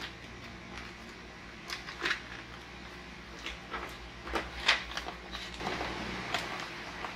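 Handling noise from a modular motorcycle helmet being lifted and pulled on over the head: scattered soft knocks and rustles of the hard shell and padding, the loudest about two-thirds of the way in.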